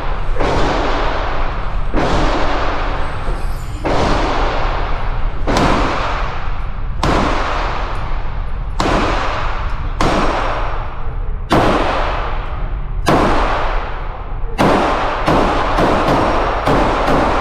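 Gunshots fired one after another about every one and a half to two seconds, coming faster near the end, each trailing off in a long echo.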